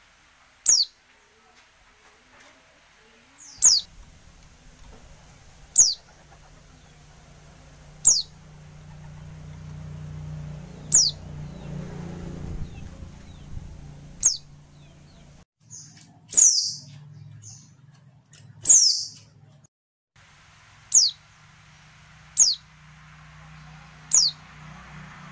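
White-eye (pleci) calls: about eleven short, high notes, each sliding downward, one every two to three seconds. These are the female's calls, used to prompt males to answer and sing. A low steady hum runs underneath for much of the time.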